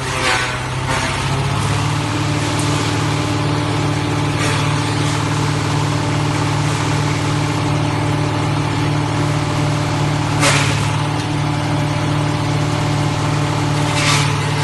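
Diesel engine of a mobile wood chipper running steadily, with four short bursts of noise spread through it.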